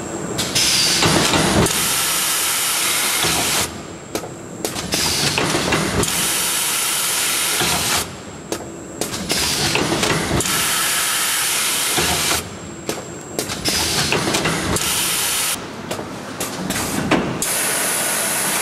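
Automatic tobacco-packing machine running in repeating cycles: loud air hissing in stretches of two to three seconds, broken by short quieter pauses about every four seconds.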